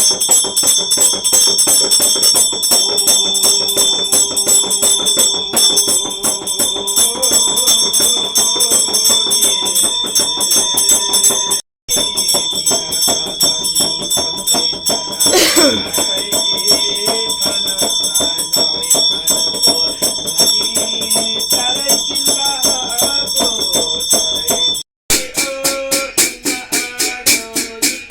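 A metal puja hand bell rung rapidly, its clapper striking many times a second under steady, shimmering high ringing, with rattling, jingling percussion. Near the end it cuts off abruptly, and rhythmic plucked-string music follows.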